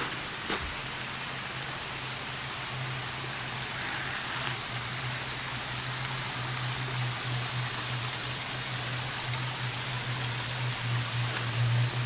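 Steady rushing of a mountain stream in the gorge below, with a steady low hum underneath and a single footstep on the trail near the start.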